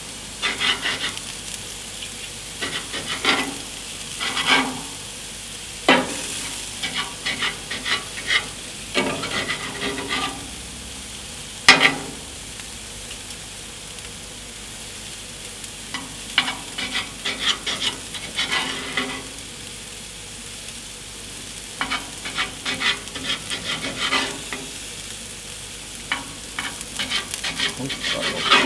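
Meat sizzling in a hot frying pan, with irregular bursts of clicking and scraping as metal tongs turn the pieces against the pan.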